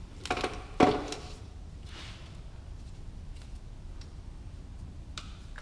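Hands and tools working on top of a car engine: a couple of sharp clicks, then a louder knock about a second in, followed by a few faint ticks as parts are handled.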